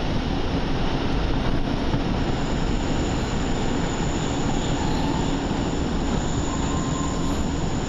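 Diesel multiple-unit train running along the line, heard from inside the carriage: a steady rumble of wheels on the rails and the underfloor engine, with a faint high whine coming in after about two seconds.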